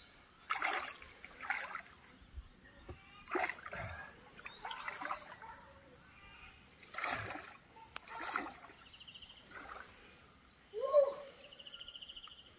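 A person wading and splashing through river water, in a string of irregular sloshing splashes, going in after a fishing line snagged on the bottom.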